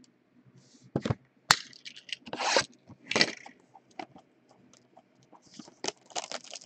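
Plastic shrink-wrap on a retail box of trading cards crinkling and tearing as it is handled and pulled open. It comes as a series of sharp crackles and short rustles, starting about a second in.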